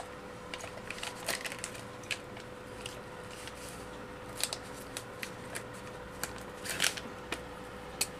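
Plastic felt-tip sketch pens clicking against one another and their clear plastic sleeve crinkling as hands sort through the pack: scattered light clicks and brief rustles, with a faint steady hum underneath.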